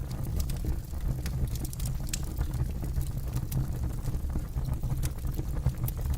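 Campfire burning, crackling with many sharp, irregular pops over a low steady rumble.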